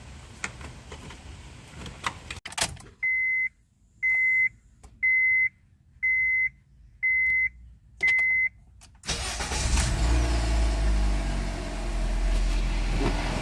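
A few light clicks, then the car's warning chime beeping six times, about once a second. Near the end the 2006 Honda Civic's 1.8-litre four-cylinder engine cranks on its newly installed starter, fires and keeps running.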